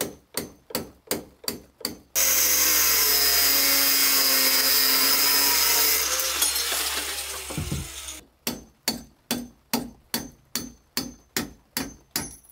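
Hammer blows on a threaded through-bolt rod, about three a second. About two seconds in, an angle grinder starts cutting metal with a loud steady whine. After about four seconds it stops cutting and spins down with a falling pitch, and the steady hammering on the rod resumes.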